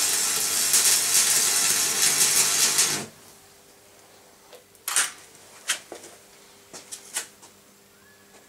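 Electric arc welding on a steel bar, a loud steady crackle that cuts off suddenly about three seconds in. After it, a few short, sharp metallic ticks and taps.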